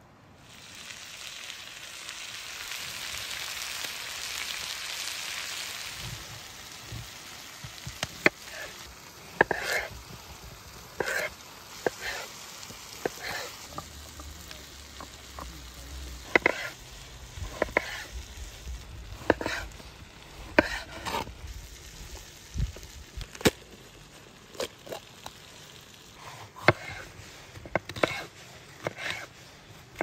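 Chef's knife slicing cucumbers and then a bell pepper on a wooden cutting board: separate crisp cuts, each ending in a knock on the board, at irregular intervals of about a second. Before the cutting starts, a steady hiss fills the first several seconds.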